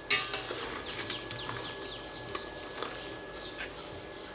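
Dry-fried beetles clattering as they are tipped from a pan into a stainless steel pot: a sharp rattle at the start, then scattered clicks. Birds chirp in the background.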